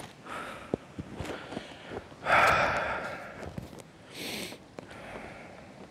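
A few light clicks and knocks as metal bowls are set on a log. About two seconds in comes a loud, breathy exhale that fades out, and a short sniff follows about two seconds later.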